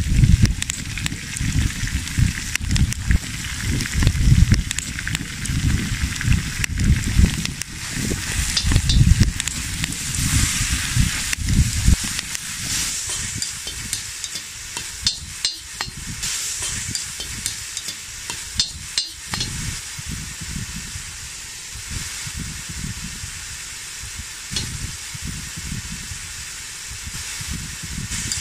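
Minced meat sizzling in hot oil in a cast-iron kazan, with a steel slotted spoon scraping and clinking against the pot as it is stirred. A low rumble runs under the first half, then fades.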